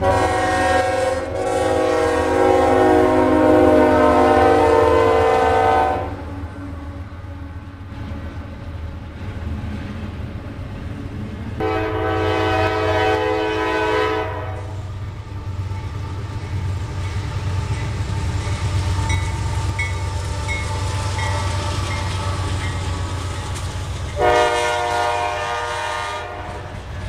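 Diesel locomotive's multi-chime air horn sounding three times: a long blast of about six seconds, a shorter one about halfway through, and another near the end, over the steady low rumble of the passing train.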